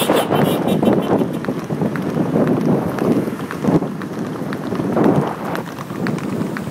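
Wind buffeting the microphone in uneven gusts, with a few handling knocks, as the camera is waved about from a moving car.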